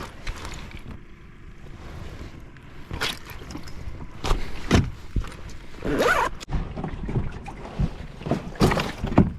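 Irregular knocks, clicks and scraping rustles of fishing gear being handled aboard a kayak while a hook is rebaited, with two longer scrapes about six seconds in and near the end.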